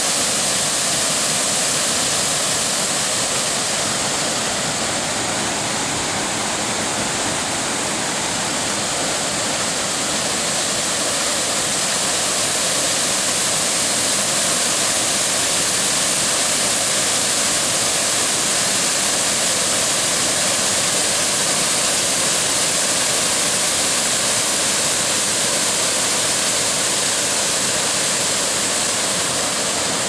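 Waterfall pouring over a rock ledge into a pool: a steady, loud rush of falling water.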